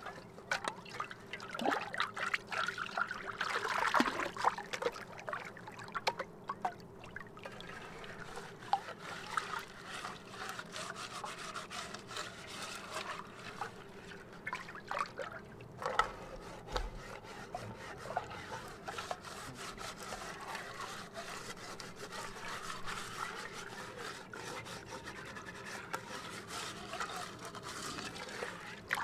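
A metal cooking pot being scrubbed out with a handful of green plant sprigs and lake water: a scratchy rubbing and scraping against the pot, with many small clicks, and water trickling and splashing as it is tipped out.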